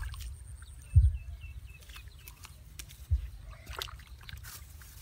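A few dull low thumps, unevenly spaced, over a faint outdoor background, with a brief run of faint high chirps after the second thump.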